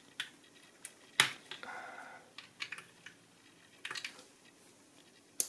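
Scattered small plastic clicks and taps as a gauge needle is pressed and adjusted on its spindle on a car instrument cluster. The sharpest click comes about a second in, and another comes near the end.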